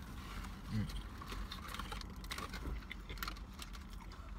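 Quiet eating sounds: small clicks and rustles of chewing and of cardboard fast-food boxes being handled, over a steady low hum, with a brief low hum of a voice about a second in.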